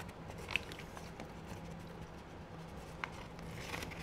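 Faint, sparse clicks and taps of a small utensil against a small ceramic bowl as vegetable oil is scraped out into a plastic bag, over a low steady hum.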